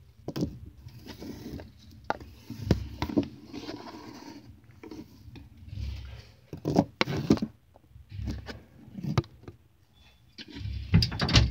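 Handling noise from reloading a Nerf foam-dart blaster: irregular plastic scrapes and clicks with a few low thumps, the louder clicks coming in small clusters.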